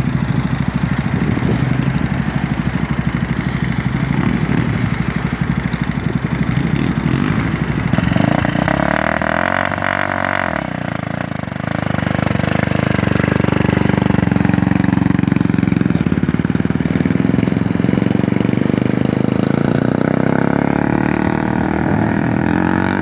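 Blackstone 300 sport quad's engine running with a steady pulsing beat; the engine note rises and falls once about halfway through.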